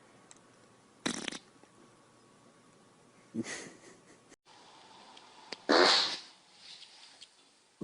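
Fart sounds: a short one about a second in, another about three and a half seconds in, then a louder, longer one about six seconds in.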